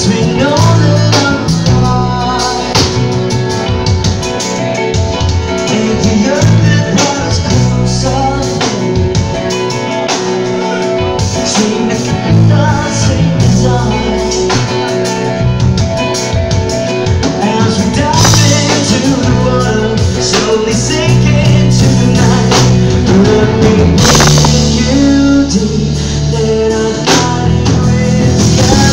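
Live rock band playing: electric guitars, bass guitar and a drum kit, with a man singing over them. The cymbals wash harder in the last few seconds.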